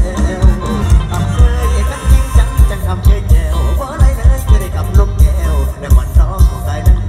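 Live Isan Thai band music played loud through a big PA system: a heavy kick-drum beat pulsing two to three times a second under a wavering sung melody.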